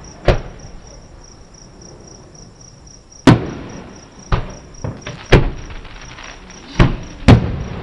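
Distant aerial firework shells bursting: about eight sharp booms at uneven intervals, the loudest about three seconds in and again around five and a half seconds, each dying away in a rolling echo. Crickets chirp steadily underneath.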